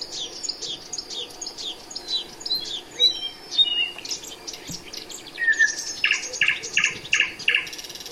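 Songbirds singing: quick runs of short down-slurred chirps, a few brief held whistles about three seconds in, and near the end a louder, evenly spaced series of about five notes.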